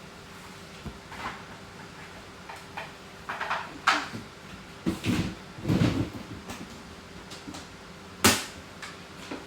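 Kitchen handling noises while cat food is put into a bowl: scattered knocks and clatters with some rustling, the sharpest knock near the end.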